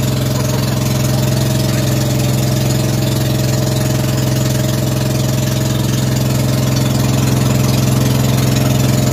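Engine of a motorized outrigger boat (bangka) running steadily under way, a loud, even drone that holds one pitch.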